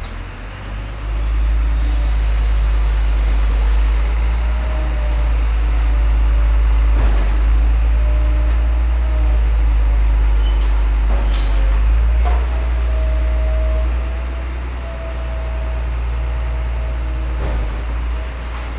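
A large engine running close by, a loud steady low rumble with a humming tone, broken by a couple of sharp knocks.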